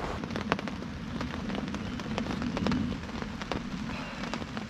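Rain falling, with many separate drops striking a nearby surface as sharp ticks over a steady hiss.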